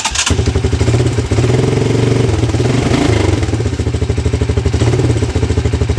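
1984 Honda TRX200 ATV's single-cylinder four-stroke engine catching right after starting and running steadily on choke, with an even pulse.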